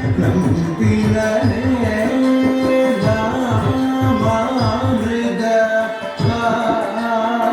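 Carnatic classical music accompanying a Bharatanatyam dance: a melody that slides and bends between notes, sung or played, over hand-drum strokes.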